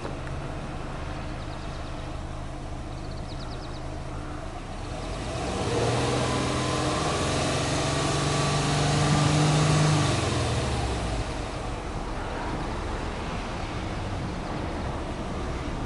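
Subaru Forester 2.0XT's turbocharged 2.0-litre flat-four, heard at its twin exhaust tips. It idles, is revved up about five seconds in and held at a raised, slowly climbing speed for about five seconds, then drops back to idle.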